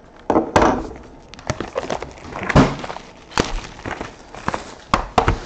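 Clear plastic shrink wrap being torn and crumpled off a trading-card box, a run of sharp crinkling crackles with a few knocks.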